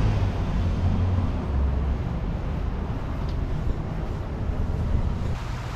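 A car driving along: a steady low road and engine rumble with an even rushing hiss.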